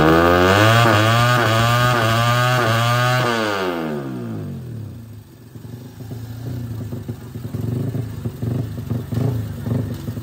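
Underbone race motorcycle's engine revved on a paddock stand, held high with the pitch wavering for about three seconds. It then drops back and runs unevenly at low revs.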